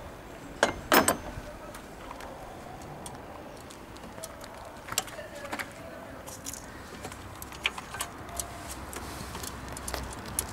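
Hands working in an engine bay: scattered metallic clicks and clinks of tools, wiring and parts being handled, with two louder knocks about a second in.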